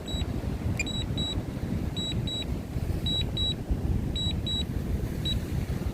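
Wind buffeting the microphone in a steady low rumble, with a high double beep repeating about once a second: an alert from the DJI Fly app on the RC-N1 drone controller.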